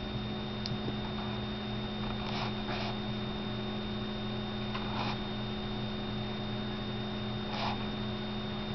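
Steady electrical mains hum with a thin high-pitched whine above it. A few faint, brief soft rustles come through it.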